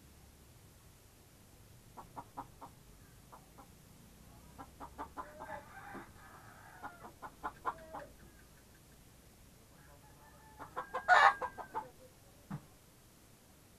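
Chickens clucking in a pen: scattered short clucks and calls in runs, then one louder, sharper call about eleven seconds in, followed by a soft thump.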